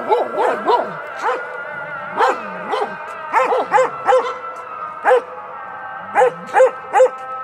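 Kangal dog barking repeatedly, about a dozen barks in irregular runs of one to three, with short gaps between runs.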